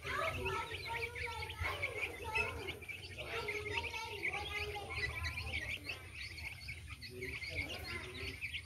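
A flock of chicks cheeping constantly while they feed: a dense, unbroken chorus of short high chirps, with some lower calls underneath.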